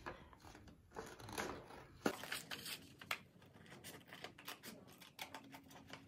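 Small scissors snipping through thin craft paper in an irregular run of short cuts, with the sheet rustling between snips. One sharper click about two seconds in.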